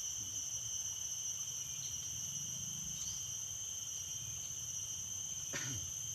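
Forest insects, garengpong cicadas, droning as a steady high-pitched whine on two pitches. A short falling sound cuts through near the end.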